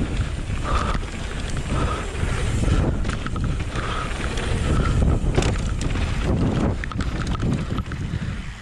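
Mountain bike rolling fast down a gravel and dirt trail: tyres crunching over loose stones with scattered rattles and knocks from the bike, under loud wind noise on the microphone.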